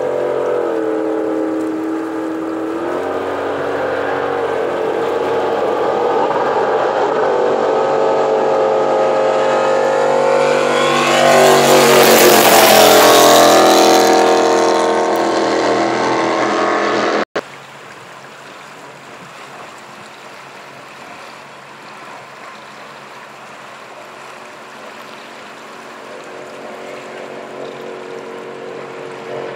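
Racing jet boat engines running at high revs as the boats speed past, the pitch shifting as they go. The loudest, closest pass comes about twelve seconds in. Then the sound cuts off suddenly to a fainter, steadier engine that grows a little louder near the end.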